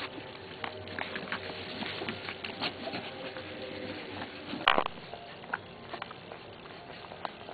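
Newborn bearded collie puppies suckling at their mother's teats: a run of small wet clicks and smacks, with one louder, brief sound about halfway through.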